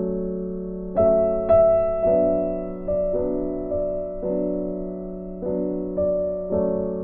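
Background music: a gentle piano piece, struck chords and notes ringing and fading, a brighter high note about a second in.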